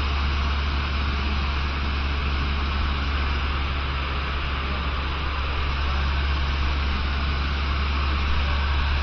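Cessna 150's four-cylinder Continental O-200 engine and propeller running steadily in flight, heard inside the cabin as a constant low drone with a hiss of airflow over it.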